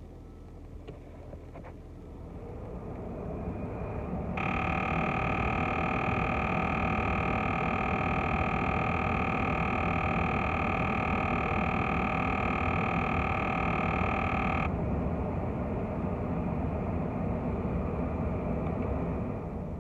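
Ford Fiesta HVAC blend door actuator buzzing: a steady, high, buzzing drone that starts abruptly about four seconds in and cuts off suddenly about ten seconds later. Underneath is a steady low rumble from the running car. The buzz is typical of a defective blend door actuator, heard on start-up and at max defrost.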